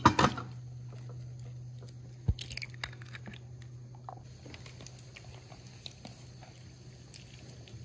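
Eggshells cracking on the rim of a plastic bowl: two sharp cracks at the start and another few about two seconds in, with light ticks of shell between. From about four seconds in, a faint steady hiss of hot oil frying.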